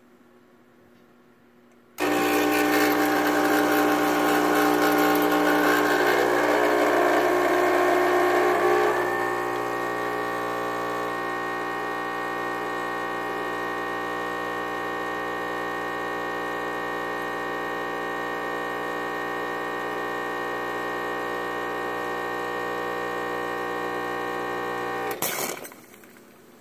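Quick Mill Andreja Premium espresso machine's vibration pump switching on a couple of seconds in and running steadily through a shot, a buzzing hum that is louder for the first several seconds and then settles lower. It cuts off near the end with a brief hiss as the E61 group's solenoid valve releases pressure.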